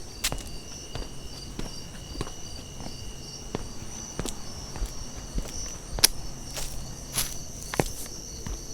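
Slow, steady footsteps through a forest, about one step every 0.6 seconds, with one sharper, louder step about six seconds in. Night insects chirp steadily behind them in a high pulsing drone.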